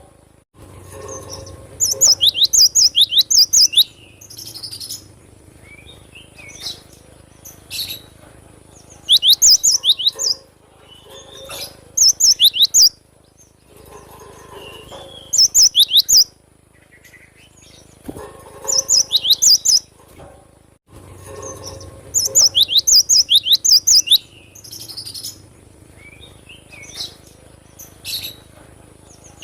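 Cinereous tit (gelatik batu) singing hard. It gives loud bursts of rapid, repeated, sharp high notes, each burst a second or two long and coming every few seconds, with softer scattered calls between the bursts.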